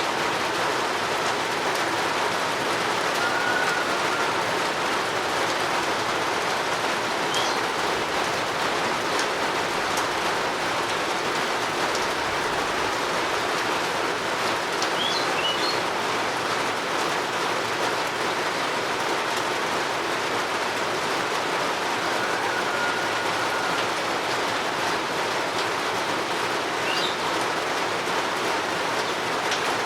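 Steady rain falling, with a few brief bird chirps and whistles heard faintly through it now and then.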